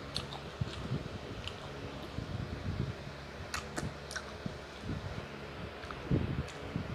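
Close-miked eating sounds: chewing and wet mouth clicks, with a few sharp clicks of a wooden spoon against a plate. The chewing grows louder near the end.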